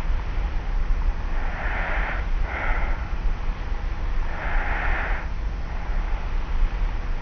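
Light snoring breaths of a sleeper lying on their back, recorded on a cassette tape recorder: a soft breath about two seconds in, a shorter one just after, and another about four and a half seconds in, over a steady low hum.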